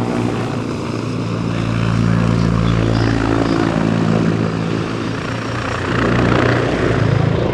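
Agusta A129 Mangusta attack helicopter flying past: a steady drone of rotor and twin turboshaft engines, growing a little louder about six seconds in.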